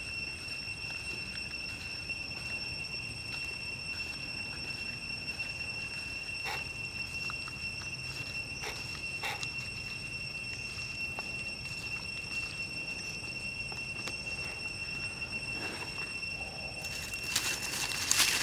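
A steady, high, droning insect call with a fainter overtone above it, under a few soft crackles as a fresh leaf is folded around raw meat in the hands. Near the end a short burst of rustling is the loudest sound.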